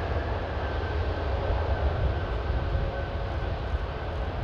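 Jet engines of a taxiing widebody airliner running at low power: a steady rumble with a thin high whine that drifts slightly lower.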